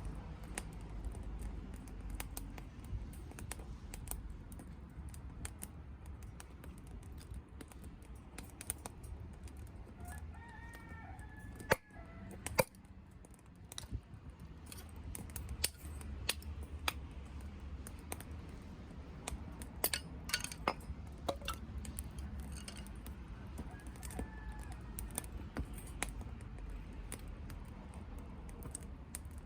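Softwood fire crackling in a small wood-gas camp stove: irregular sharp pops and ticks over a low steady rumble, with two louder pops about twelve seconds in. A bird chirps briefly a couple of times.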